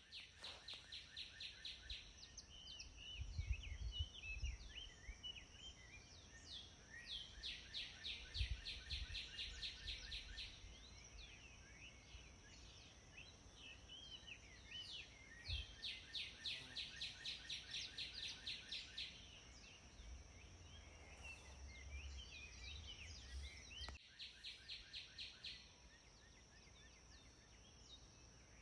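Morning birdsong in forest: runs of rapid repeated notes, about four a second, come in several bursts among scattered chirps, over a steady high-pitched tone, with low rumbles at times.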